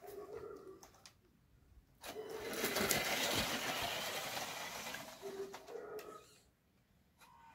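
Homemade RC 4x4 off-road car driving past through grass, its motor and home-made gearbox whirring. The sound swells about two seconds in, is loudest as the car comes closest, then fades away over the next few seconds.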